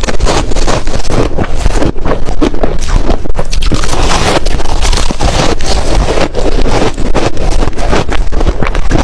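Ice being chewed close to the microphone: a loud, unbroken run of crunches and cracks.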